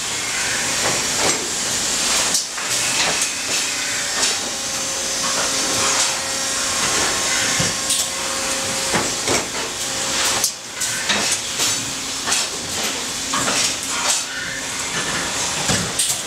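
Thermoforming plant machinery running: a steady hiss of air with frequent clicks and clanks.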